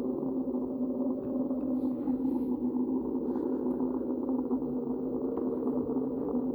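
Made-up Platecarpus (mosasaur) sound effect: a steady, low drone of several held tones that runs on without a break.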